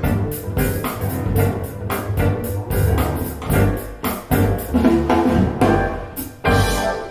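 A band track with drum kit, bass and guitar played back through KEF LS50 speakers, the drums beating steadily; the music drops away near the end.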